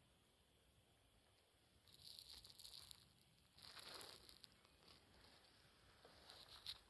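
Faint crunching and rustling footsteps on a dry trail: near silence at first, then two stretches of crunching about two and four seconds in, and a sharp click near the end.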